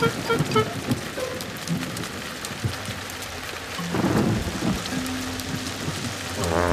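Cartoon soundtrack of steady heavy rain, with a low rumble of thunder about four seconds in. A few plinking music notes sound at the very start, and a short pitched sound that dips and rises comes right at the end.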